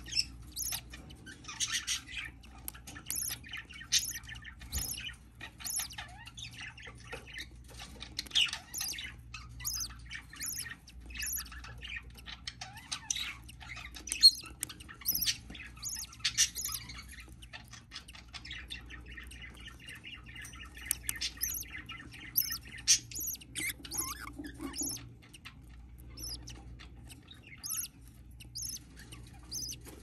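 Budgerigars chirping: short, high chirps about once or twice a second, with softer chattering beneath.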